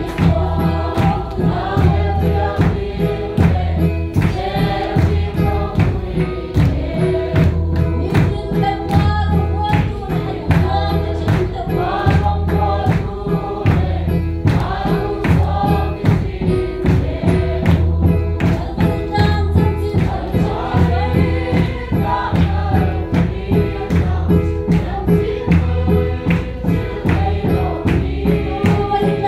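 A congregation singing a gospel hymn together, with keyboard accompaniment, a steady even beat and hand clapping.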